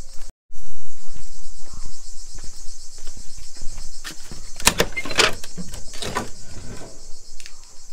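A long brass slide bolt on a wooden door is drawn back and the door swung open: a run of sharp metal clicks and scrapes about halfway through, with lighter knocks after. Steady high insect chirring goes on throughout.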